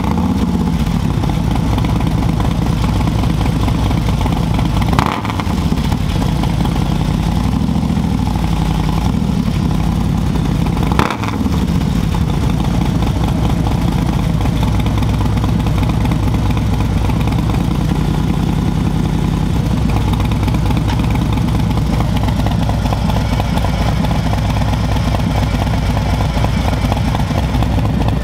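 Harley-Davidson CVO Road Glide ST's Milwaukee-Eight 121 V-twin running through an aftermarket SP Concepts 2-into-1 exhaust, with stock cam. It idles, is revved briefly about five and eleven seconds in, then idles steadily.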